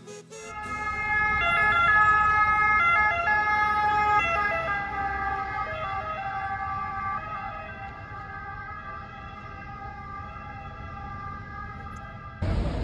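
Emergency vehicle siren sounding over street traffic, holding a steady pitch with brief jumps. It is loudest about two seconds in and slowly fades, then cuts off abruptly near the end.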